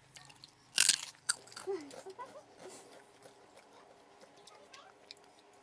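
People eating takeaway food: a loud crunch about a second in, then scattered small crunching and chewing sounds.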